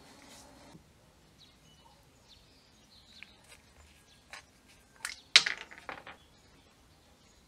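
A steady hum cuts off within the first second, followed by a series of short, sharp knocks and clicks of hard objects, the loudest a little past the middle.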